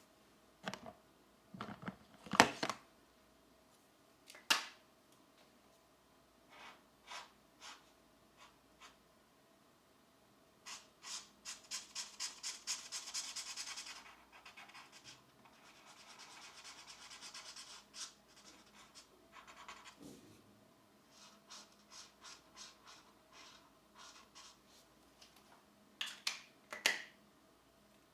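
Pencil coloring on a coloring-book page. Scattered sharp taps and clicks, the loudest about two and a half seconds in, give way to quick back-and-forth shading strokes at about four or five a second, then a steadier scratching. A few more sharp taps come near the end.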